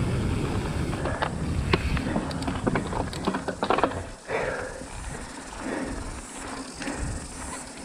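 Mountain bike rolling fast down a dry dirt trail: tyre noise on the loose surface with rapid clicks and rattles from the bike over bumps, and wind rumble on the camera microphone. The rattling is busiest in the first half, and the sound drops briefly about four seconds in before going on more quietly.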